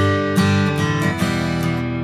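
Background music: strummed acoustic guitar, with a chord struck about every half second.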